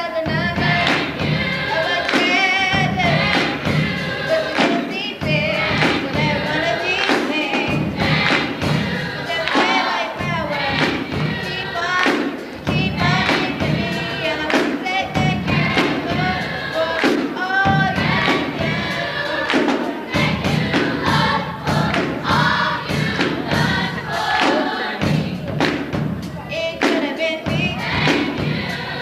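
School gospel choir singing a gospel song, voices held with vibrato, over a steady beat.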